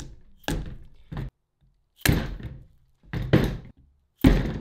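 Mallet blows on the joint end of a CV axle, driving the inner race and ball cage down the axle splines so the new retaining clip locks in. About five sharp strikes, roughly a second apart, with two close together a little past the middle.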